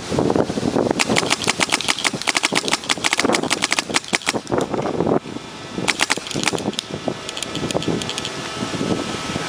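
Electropneumatic paintball marker firing rapid strings of shots, several a second: one long burst from about a second in to about five seconds, then a shorter one around six seconds and a few more shots near eight seconds. Wind buffets the microphone throughout.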